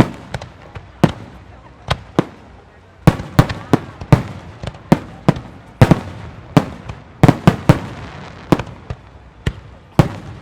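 Aerial fireworks shells bursting in quick, irregular succession, about two or three sharp booms a second, each with a short echoing tail.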